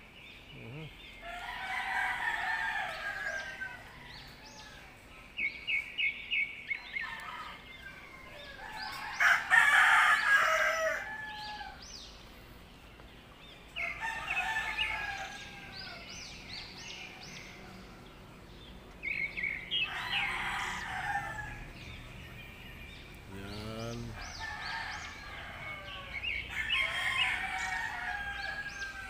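A rooster crowing again and again, about five crows a few seconds apart, the loudest about ten seconds in, with a quick run of short high chirps about six seconds in.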